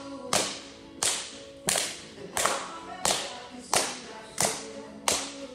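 Hands clapping in a steady rhythm, about three claps every two seconds, each clap echoing briefly, with faint background music underneath.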